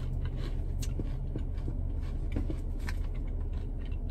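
A person chewing Snyder's twisted jalapeño and ranch pretzel sticks, with small irregular crunches throughout, over the car's steady low hum.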